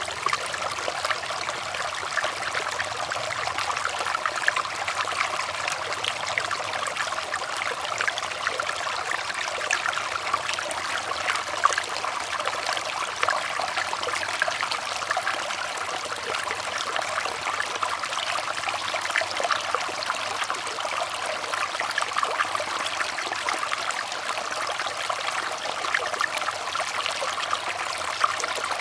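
Running water trickling and splashing steadily, a dense patter of small splashes with little low rumble.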